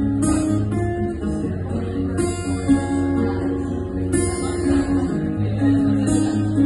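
Acoustic guitar playing an instrumental passage: chords strummed about every two seconds, ringing out over sustained low notes, with no singing.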